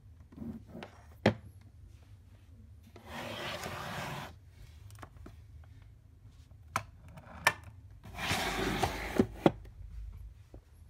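Electric dustpan's suction motor starting up twice, each time running for about a second as a floor wiper pushes debris into its intake, with a few sharp clicks and knocks between runs.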